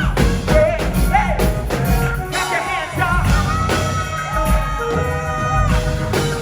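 Live gospel song with a band and sung vocals, including a long held note partway through.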